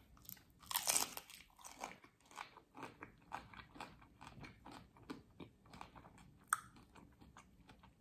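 Close-up chewing of crispy fried corn tortilla: a loud crunching bite about a second in, then steady chewing with short crisp crunches and one sharp crack near the end.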